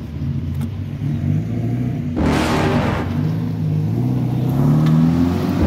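Off-road vehicle engine running and revving, its note climbing over the second half. A burst of rushing noise joins about two seconds in.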